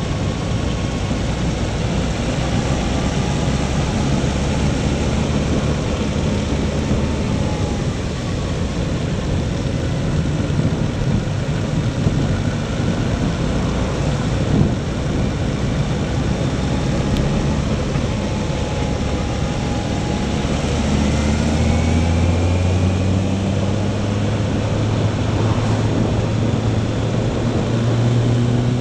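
Motorcycle engine running under way with wind rushing past, the engine note rising twice in the last third as the bike accelerates out of a bend.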